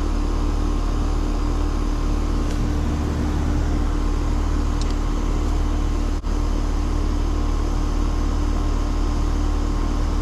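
Heat pump outdoor unit running steadily, its compressor hum and condenser fan making a constant machine drone, with one brief dropout about six seconds in.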